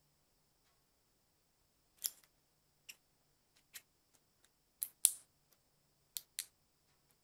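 Irregular small sharp clicks and taps as a corroded old metal lighter is handled and turned over in gloved hands. There are about a dozen, starting about two seconds in, the loudest a little past the middle.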